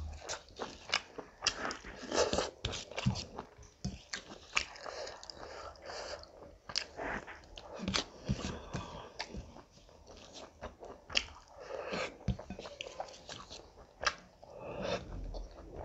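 Close-up chewing with wet, irregular lip smacks and mouth clicks as a person eats rice and curry by hand.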